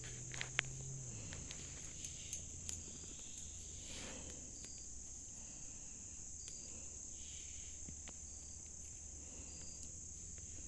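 Steady, high-pitched chorus of insects singing in the woods, with a few faint clicks in the first three seconds.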